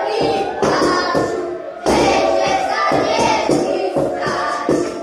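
Folk music with children singing, broken by irregular thuds on the stage.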